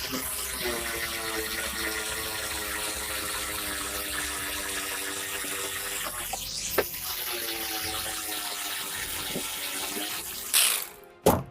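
An electric power tool running steadily with a rushing hiss over a motor hum, stopping briefly around the middle with a click and again near the end. A sharp knock follows right at the end.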